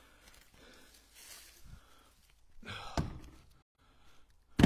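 Split firewood pieces thrown into a pickup truck bed while loading: a knock about three seconds in and a louder thunk at the very end as a piece lands.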